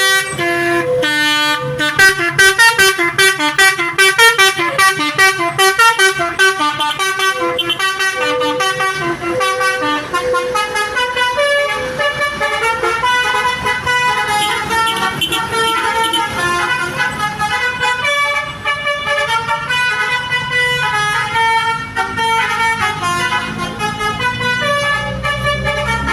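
Basuri V3 telolet horn, a multi-trumpet musical bus horn, playing a fast tune: several tones sounding together and jumping from note to note every fraction of a second. A low rumble comes in near the end.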